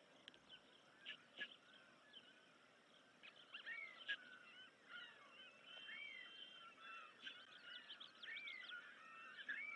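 Faint high chirping and peeping of ospreys at the nest during a feeding: many short notes and small rising-and-falling whistles, busier from about three seconds in, over a light outdoor hiss.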